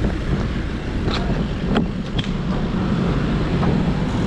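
Wind buffeting the microphone and road rumble while riding a bicycle, a steady noise with a few sharp clicks in the first half.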